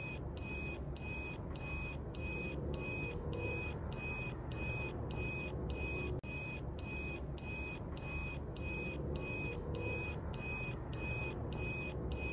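Replica Omni time-machine prop giving a short, high electronic beep about twice a second, evenly repeated over a steady low background hum, with a brief dropout about halfway.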